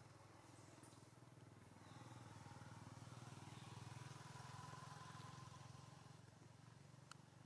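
Faint drone of a distant engine, likely a passing vehicle, swelling toward the middle and easing off again, with a light tick near the end.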